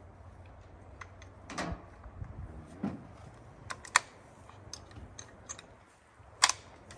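Scattered light clicks and knocks as a hunting rifle and gear are handled on the back of a pickup, with two sharper clicks, one about halfway through and one near the end.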